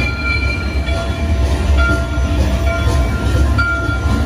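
Train sound effects from a dark ride's show audio: a low steady rumble with short, high whistle-like tones sounding now and then over it.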